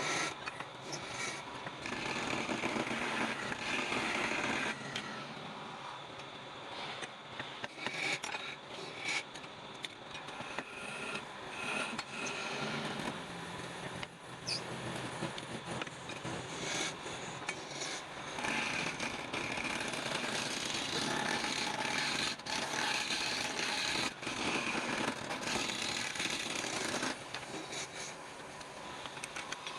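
Wood being worked with tools: a rough, continuous scraping and grinding that swells and eases every few seconds.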